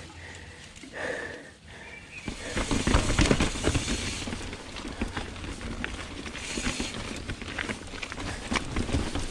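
A Trek Remedy mountain bike rolling over rocky singletrack: about two seconds in, a dense rattle of tyres knocking over rock and the bike clattering starts up over a steady rush of riding noise.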